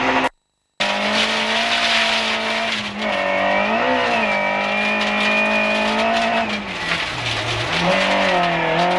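Rally car engine at high revs heard from inside the cabin, with road noise. The engine holds a steady high note that wavers about four seconds in, and its revs drop sharply near the end before climbing again. The sound cuts out completely for about half a second just after the start.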